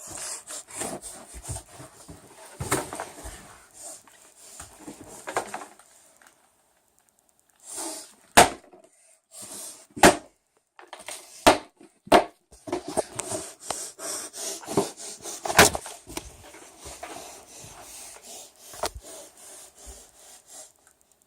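A plastic Rubik's cube being twisted by hand, its layers scraping and clicking irregularly as they turn, with a pause of a second or so about six seconds in.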